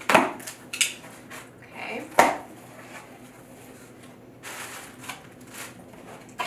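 A cardboard shipping box being opened by hand: packing tape slit with a small tool and the cardboard flaps pulled back, giving a few sharp scrapes and rustles, the loudest about two seconds in.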